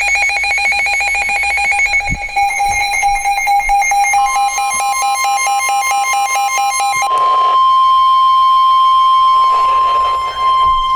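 Emergency alert tones: a rapidly pulsing electronic alert beeps for about seven seconds. About four seconds in, a steady single-pitch alert tone joins it and holds on to the end.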